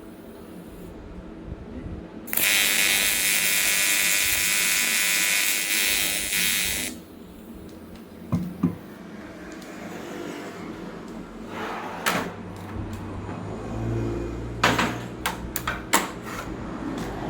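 Aluminum TIG welding arc buzzing steadily for about four and a half seconds, switching on and off abruptly, followed by scattered clicks and knocks.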